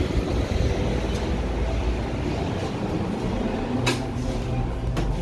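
Steady low rumble of street and traffic noise. Near the end come a couple of sharp clacks as a glass entrance door is pushed open.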